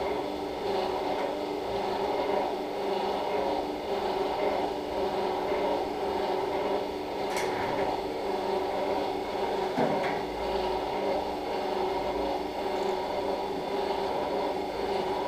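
Steady hum of operating-room equipment running, several constant tones at an even level, with a couple of faint clicks of handled instruments.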